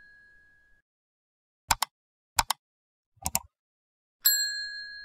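Three quick double clicks, roughly a second apart, then a small bell struck once near the end, ringing on and slowly fading.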